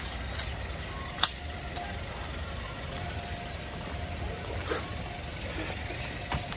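Steady high-pitched drone of insects in the trees, with one sharp click about a second in and a couple of fainter clicks later.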